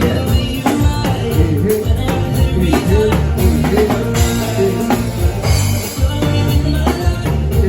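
A band playing a song live, with a lead voice singing over heavy bass and drums keeping a steady beat.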